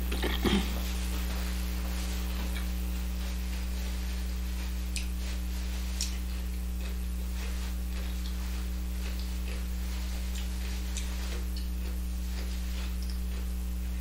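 Steady electrical mains hum with a low buzz, picked up by the recording setup. A short noise about half a second in and a few faint ticks.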